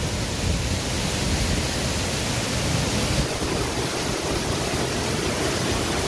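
Waterfall heard from its foot: water pouring into the pool below in a steady rush.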